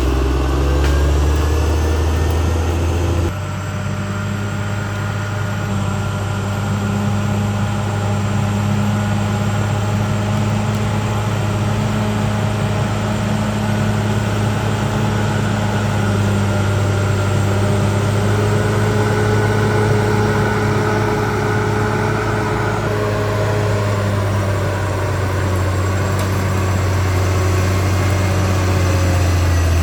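CAT D6R XL bulldozer's diesel engine running steadily, with thin whining tones above the engine note. The engine note changes abruptly about three seconds in, then holds steady.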